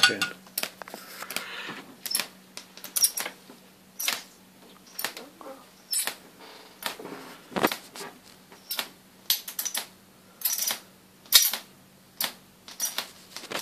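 Jacob's ladder traveling arc driven by a ZVS high-voltage driver, fed about 19 V, crackling with sharp irregular snaps about twice a second over a faint steady hum.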